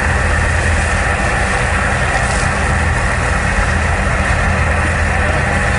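Boat engine running at a steady low drone.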